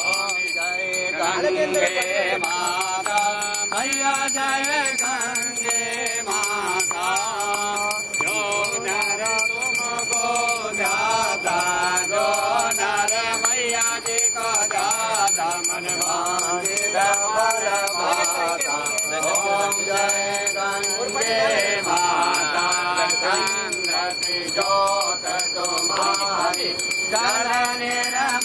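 Devotional music: a wavering melody line that carries on without a break.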